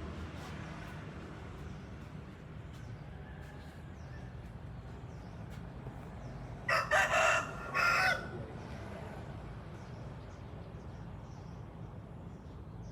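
A rooster crowing once, about seven seconds in, a loud call of about a second and a half in two parts.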